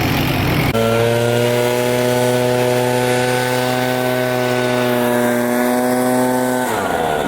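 Chainsaw held at high revs, one steady pitch from about a second in until near the end, when the revs fall away. Another engine runs underneath at the start.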